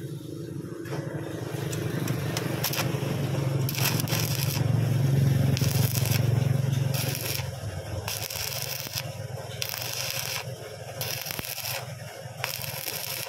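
Stick-welding arc crackling and sizzling in a string of short bursts, each under a second, over a steady low hum. The welding tacks a slide-hammer rod onto an engine block's water jacket (core) plug so the plug can be pulled out.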